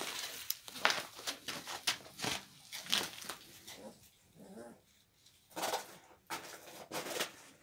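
Young Kangal puppies making short whimpers and squeaks, among many short scratchy crackles.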